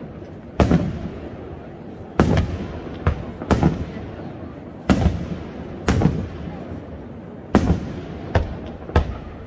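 Aerial firework shells bursting overhead: a string of sharp booms at uneven spacing, roughly one a second, each trailing off in a low rolling rumble.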